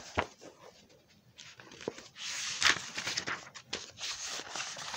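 Pages of a paperback math textbook being handled and flipped. It is quiet at first with a few light clicks, then paper rustles and crackles from about two seconds in.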